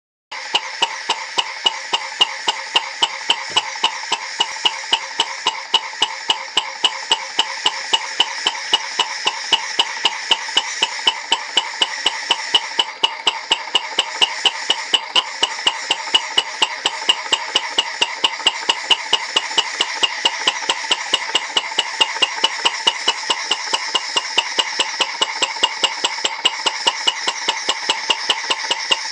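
Alyn Foundry CHUK 2 model engine running steadily, its mechanism ticking in a fast, even rhythm over a continuous hiss.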